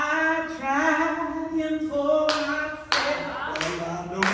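Women's voices singing a gospel praise song together, with hand claps on the beat coming in about two seconds in, roughly one every two-thirds of a second.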